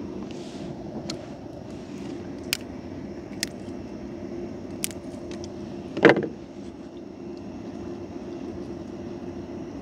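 A motor's steady low hum, with a few sharp clicks and one louder knock about six seconds in.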